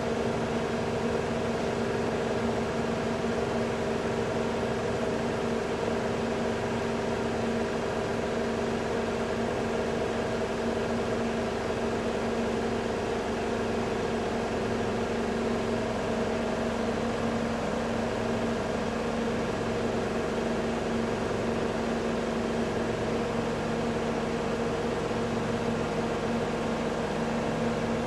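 Melag Vacuclav 31B autoclave running a test cycle: a steady mechanical hum with several steady tones.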